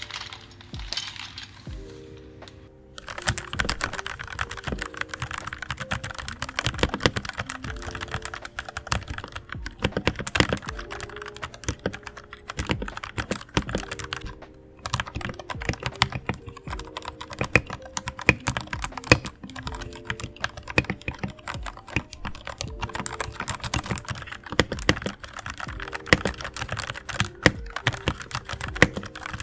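Rapid typing on a Royal Kludge RK84 mechanical keyboard with red linear switches, a fast run of clicks starting about three seconds in, with a brief pause about halfway. Background music plays throughout.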